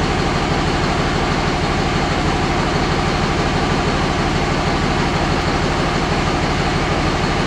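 Dodge 5.9 Cummins common-rail inline-six turbo diesel idling steadily at operating temperature.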